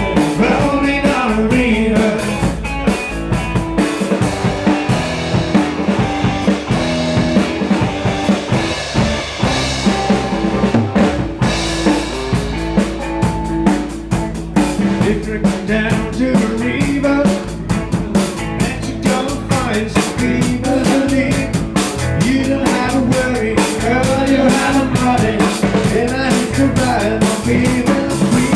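A live band playing, with a drum kit keeping a steady beat under the other instruments.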